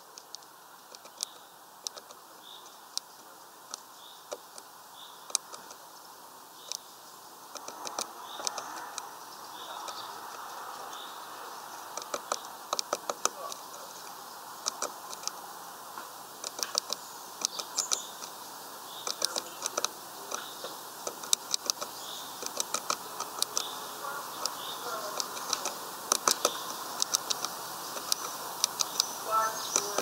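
Great tit hammering a black sunflower seed open with its bill against a wooden perch: a quick, irregular series of sharp taps that come faster and louder from about a quarter of the way in.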